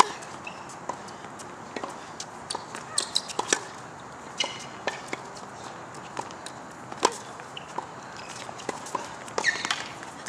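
Tennis rally: sharp pops of a racket striking the ball every few seconds, with lighter ball bounces and quick footsteps and shoe squeaks on the hard court between the hits.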